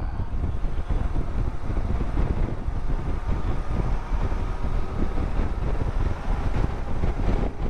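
Motorcycle riding at road speed: wind rushing and buffeting over the microphone, with the engine and tyre noise underneath.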